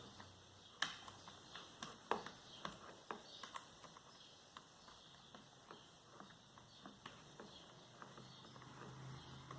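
Faint, irregular clicks and taps of a screwdriver and the plastic housing of a pedestal fan being handled while its cover screws are taken out, with a louder click about a second in and another about two seconds in.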